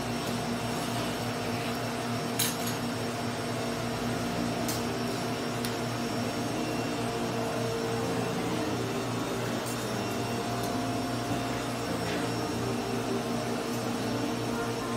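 Steady machine hum, like a running motor or fan, with a few faint clicks.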